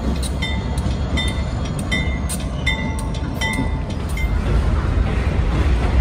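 A train passing close by: a steady heavy low rumble with a string of sharp metallic clicks and short ringing tones, about two a second, that stop about four seconds in.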